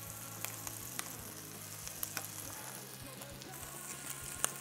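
Salmon fillets frying skin-side down over low heat in a little olive oil on greaseproof paper, making a steady gentle sizzle with scattered small crackles and one sharper pop near the end.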